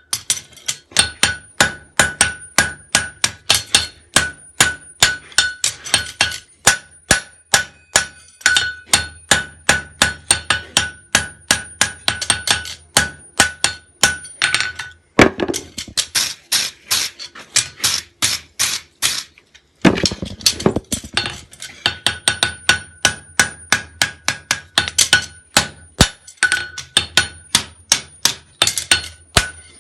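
Farrier's hammer forging a heel on hot flat steel bar stock on an anvil: a long run of steady blows, about two or three a second, with the anvil ringing between them. Around the middle comes a quicker flurry of sharper blows, then a brief pause before the steady hammering resumes.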